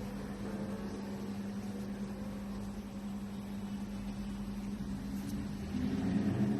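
A steady low hum with a faint hiss, holding one even pitch throughout.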